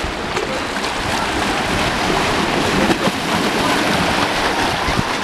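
Small lake waves lapping and splashing among shoreline boulders, a steady wash of moving water.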